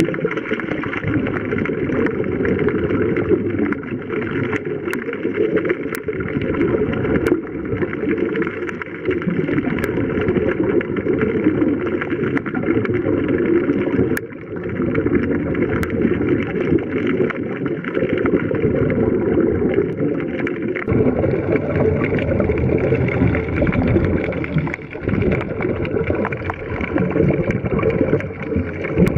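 Underwater sound picked up by a diver's camera: a steady, rumbling wash of water and bubbles, with a few sharp faint clicks.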